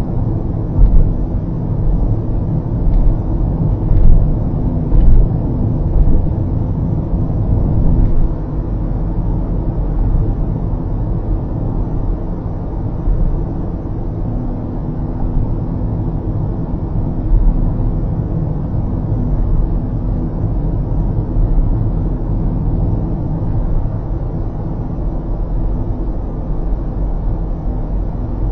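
Steady low rumble of tyre and road noise from a car cruising on an expressway, heard from inside the cabin. A few light knocks come in the first several seconds.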